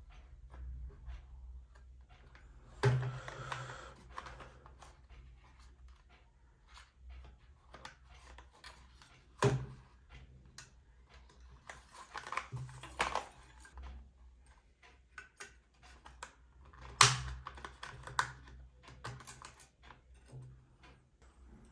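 Irregular light clicks and taps of hard plastic being handled, with three sharper knocks about three, nine and seventeen seconds in.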